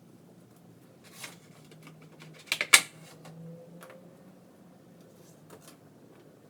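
DDR4 RAM stick being pressed into a motherboard memory slot: a loud cluster of three sharp plastic snaps about two and a half seconds in as the module seats and the slot's retention latch clicks shut, with a few lighter clicks of handling before and after.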